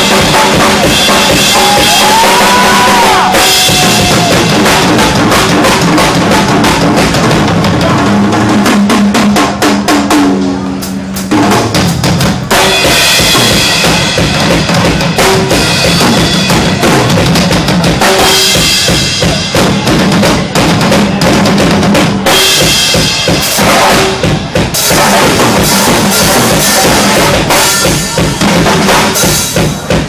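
A live band playing loudly, with the drum kit's bass drum, snare and cymbals to the fore. The music briefly thins about ten seconds in.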